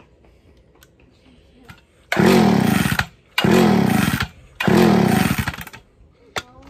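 Homelite 360 two-stroke chainsaw being pull-started three times in quick succession, the engine sputtering briefly with each pull and not keeping running. The engine is flooded.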